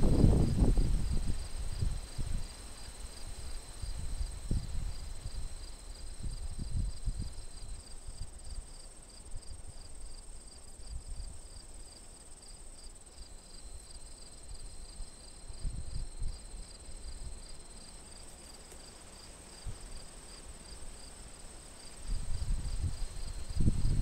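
Wind gusting against the microphone, a low rumble that is strongest at the start and builds again near the end, over steady high-pitched insect chirping in the grass: rapid, even pulses over a constant high drone.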